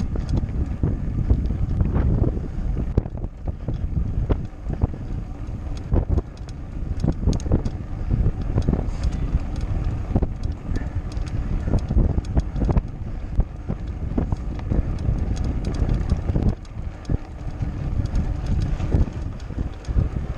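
Mountain bike rattling and jolting over cobblestones, with dense irregular knocks from the bike and camera mount. Wind buffets the camera microphone as a steady low rumble underneath.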